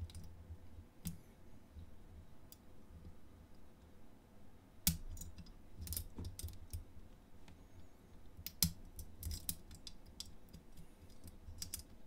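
Faint, irregular metallic clicks and scrapes of a hook pick working the pins inside a Master Lock 685EURD padlock's keyway, during single-pin picking. The clicks are sparse, with a sharper one about five seconds in and a denser run around nine seconds.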